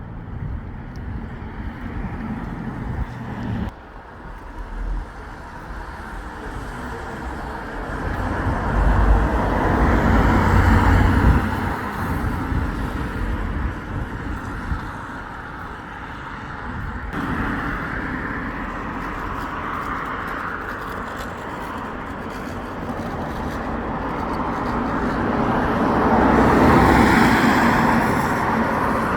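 Road traffic: motor vehicles passing close by one after another, with two louder passes swelling and fading, one about nine seconds in and one near the end.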